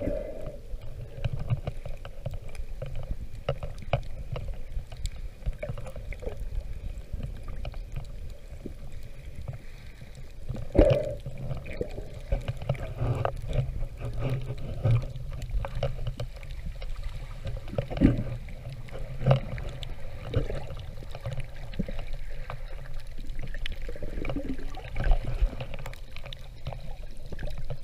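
Underwater sound picked up by a submerged camera: a steady low, muffled rumble of moving water with scattered clicks and knocks and a few gurgles, the sharpest knocks about 11 and 18 seconds in.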